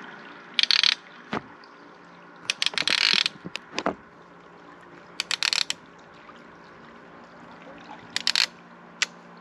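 Fishing reel's line clicker ratcheting in four short bursts of rapid ticks as a biting catfish pulls line off the reel.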